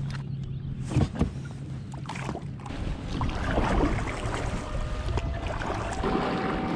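Kayak paddle blades dipping and pulling through lake water in steady strokes, splashing. A sharp knock sounds about a second in.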